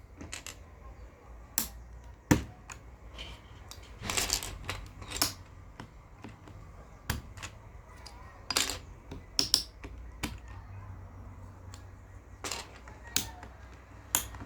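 Keycaps being pulled off a mechanical keyboard's switches one at a time: irregular sharp plastic clicks and clacks, about a dozen of them.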